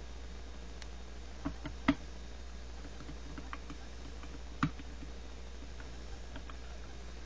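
Light clicks and taps from a small die-cast model SUV being turned over and handled in the fingers. There are sharper clicks at about one and a half and two seconds in and another at about four and a half seconds, with fainter ticks between, over a steady low hum.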